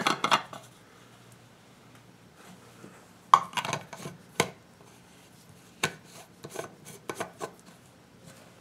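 Stainless steel outer lid being screwed onto a Thermos vacuum food jar by hand: scattered metal clicks and scrapes of the threads, with the sharpest click about three seconds in. A faint low hum runs underneath.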